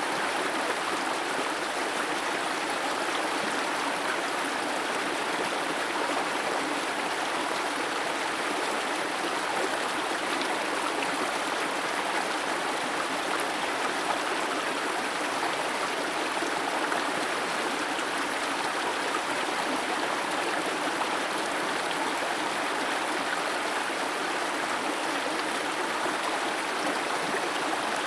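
Steady rush and splash of a waterfall whose water streams in thin threads down a rock face, even and unchanging throughout.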